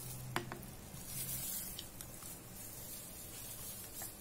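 Wire whisk stirring a thick yogurt-and-spice marinade in a ceramic bowl, soft and wet, with two light clicks against the bowl about half a second in.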